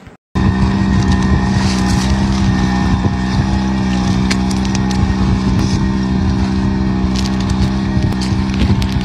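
A small engine running steadily at a constant speed: a loud, even drone that cuts in abruptly just after a moment of silence.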